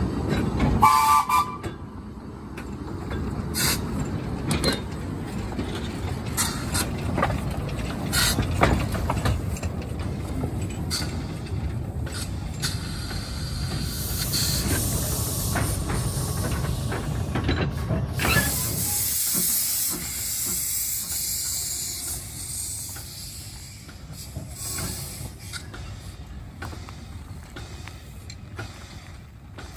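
Baldwin narrow-gauge steam locomotive at work, with a short whistle toot about a second in, then a low rumble of the engine and train with scattered clanks and knocks. About two-thirds of the way through, a loud, steady hiss of escaping steam takes over.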